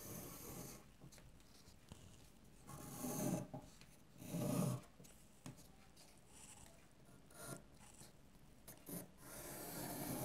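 Pencil scratching faintly on paper as it traces lines, in a few short strokes with pauses between; the strongest strokes come about three and four and a half seconds in.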